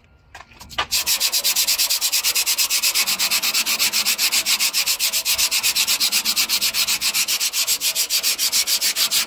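Sandpaper rubbed by hand over the rusty, flaking-painted steel side guard of a fuel tanker truck, in fast even back-and-forth strokes of about seven a second, starting about a second in. The metal is being scuffed back to bare for repainting.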